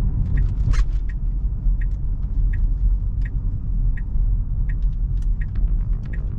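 Car cabin road rumble with the turn signal ticking steadily, about three ticks every two seconds, while the car makes a right turn.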